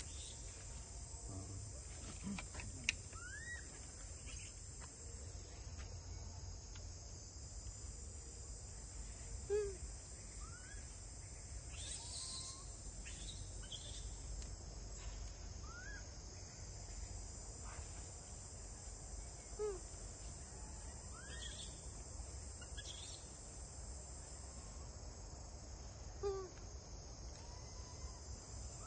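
Steady high-pitched chorus of insects such as crickets, with a few short rising chirping calls every several seconds over a low rumble.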